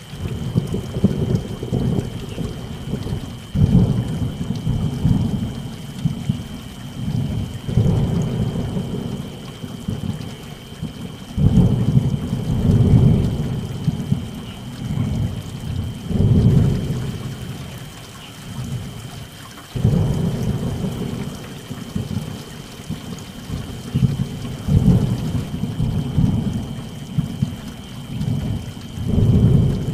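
Thunderstorm: deep thunder rumbles again and again, swelling and fading every few seconds, over steady rain.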